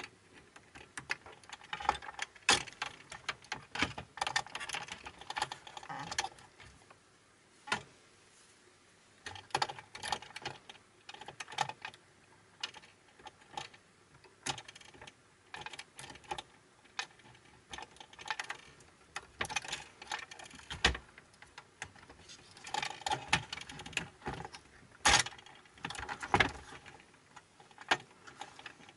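Irregular clicks, taps and rattles of a cassette deck's plastic parts and circuit board being handled and pried free of their retaining clips.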